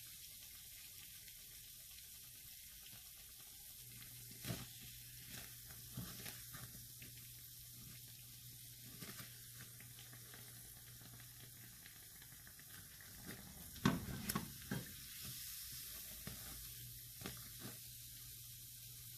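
Besan-battered chicken bread pakora deep-frying in hot oil, a faint steady sizzle. A few light clicks and taps of a metal slotted spoon against the pan and the pakora break in now and then, the loudest cluster about fourteen seconds in.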